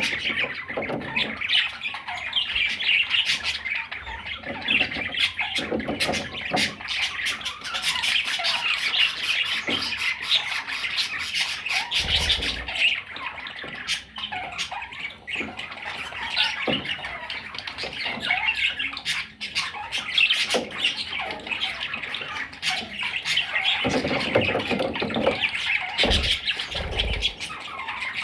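Several parrots chattering and squawking continuously, with many sharp clicks scattered through and a few low thumps.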